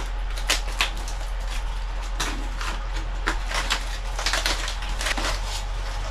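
Tinfoil cooking packet crinkling, with tongs clicking against it, as it is handled and opened on campfire coals: a run of short, irregular clicks and crackles.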